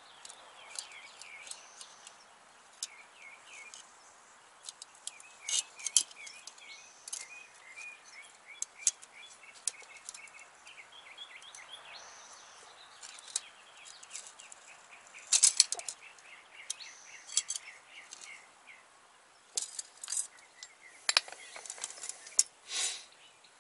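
Sharp metallic clicks and taps now and then as a brake hard line is worked in a hand tube bender and handled, the loudest cluster about fifteen seconds in. Small birds chirp in runs of short high notes in the background.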